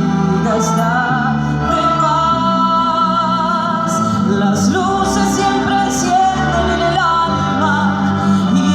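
Music with a singing voice held in wavering notes over a steady bass line that changes note every second or two.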